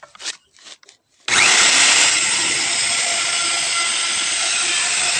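A few brief handling noises, then just over a second in a wood router starts abruptly and runs loud and steady while routing a hole into a wooden window frame.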